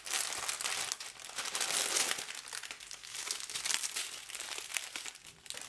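Small clear plastic packets of resin diamond-painting drills crinkling and rustling as they are shuffled in the hands, with the beads rattling faintly inside; louder over the first two seconds, then softer.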